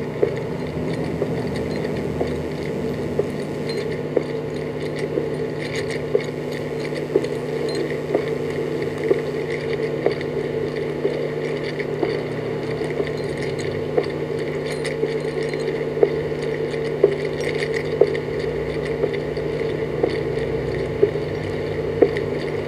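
Steady hum of a live ceremony broadcast played through a television speaker, with light sharp clicks about once a second in the second half.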